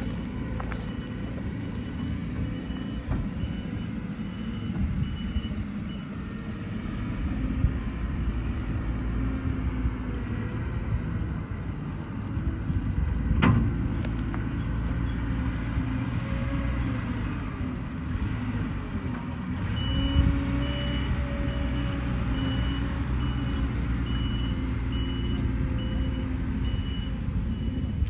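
Diesel engine of a Claas Scorpion 741 telehandler running steadily as it works, with its reversing alarm giving evenly spaced short beeps for the first few seconds and again through the last third. A single sharp clank about halfway through.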